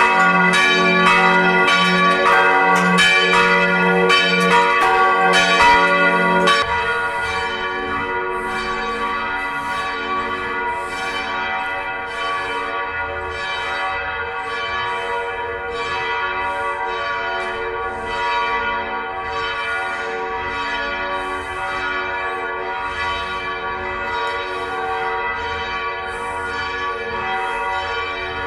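A peal of several church bells swinging and ringing together, strokes overlapping in a steady rhythm. About six seconds in, the deepest bell stops and the remaining higher bells ring on, a little quieter.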